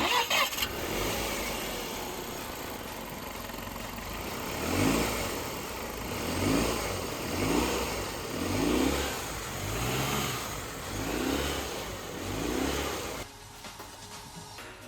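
Range Rover Sport's TDV6 V6 diesel engine starting, then running and blipped about seven times, each rev rising and falling, before the sound stops abruptly near the end. This is a run-up after an engine mount replacement.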